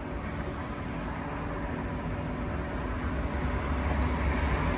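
Steady machine hum with several fixed tones over a low rumble, growing a little louder in the second half.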